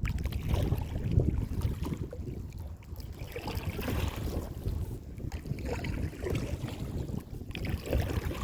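Wind buffeting the microphone in an uneven low rumble, with water sounds from a kayak moving across the water.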